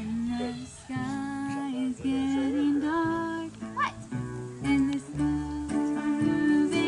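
Live band music with strummed acoustic guitar under held instrumental notes and a melodic line.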